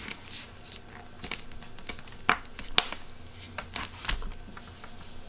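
Clear plastic pocket of a spiral planner crinkling and clicking as cards are slid into it and pressed flat by hand: a scatter of small taps and rustles, with two sharper clicks a little past the middle.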